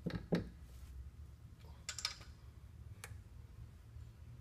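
A handful of light, scattered clicks and taps from a Mercruiser Alpha One Gen 2 sterndrive being handled against the gimbal housing as it is worked into place. A faint low hum runs underneath.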